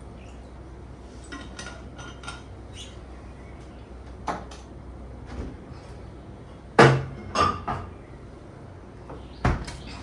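Light clicks and knocks of a chilled water bottle being handled at an open fridge. A knock comes about four seconds in, then a louder pair of knocks around seven seconds and another just before the end, like the bottle being set down or the door being shut.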